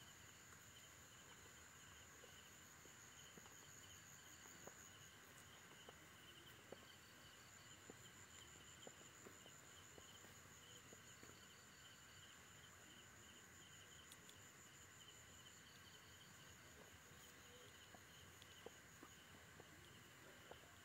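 Faint night chorus of crickets trilling steadily at several pitches, one of them chirping in short bouts every few seconds, with scattered faint ticks.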